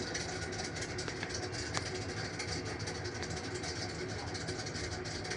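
Industrial overlock sewing machine's motor running steadily, with a fast fine rattle over a low hum.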